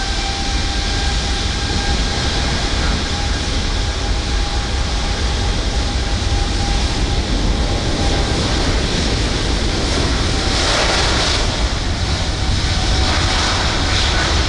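Boeing 747 freighter's jet engines running as it rolls along the runway: a steady loud jet noise with a high whine that sinks slightly in pitch. A louder rush of noise comes about ten seconds in.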